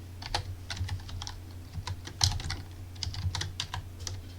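Typing on a computer keyboard: irregular, quick keystrokes, several a second, over a steady low hum.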